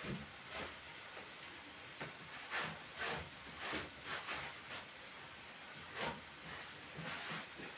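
A wet cloth rubbed over the raw wood of a tree-trunk slab tabletop in repeated wiping strokes, each a short faint rubbing hiss, coming irregularly about once or twice a second.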